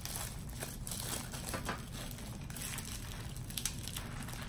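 Clear plastic packaging crinkling and crackling irregularly as it is worked open by hand.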